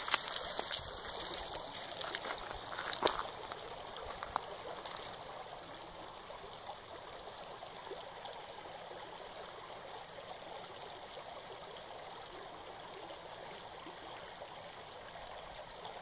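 Shallow, stony creek trickling and babbling in a steady rush of running water. A few sharp clicks sound in the first few seconds.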